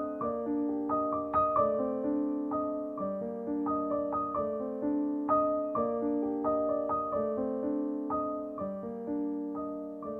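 Background piano music: a gentle melody of struck notes, a few a second, each ringing out and fading.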